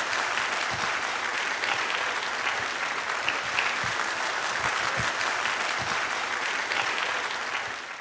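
Audience applauding steadily, fading out near the end.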